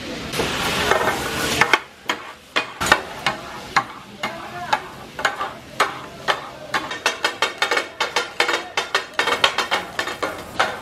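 Metal spatula clacking and scraping on a large flat iron griddle as katakat is worked, with meat and masala sizzling in oil. The sizzle is loudest for the first second or two; after that the sharp metal clacks take over and come faster near the end.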